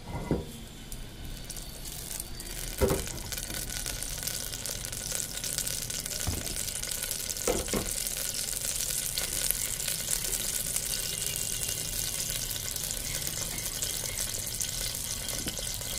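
Ghee melting in a hot pressure cooker on a gas burner, with a fine crackling sizzle that builds over the first few seconds and then holds steady. There are a few light knocks near the start and about halfway through.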